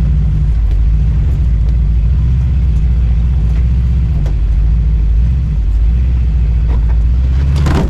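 Lifted 4x4 GMC Safari van's engine running steadily under load as it crawls through a rutted trail section, a deep steady rumble, with a couple of short knocks, the louder one near the end.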